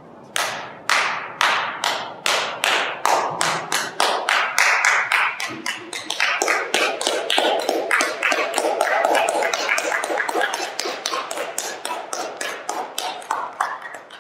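Slow hand claps from a couple of people, about three a second and thicker in the middle, each clap echoing in a large empty auditorium.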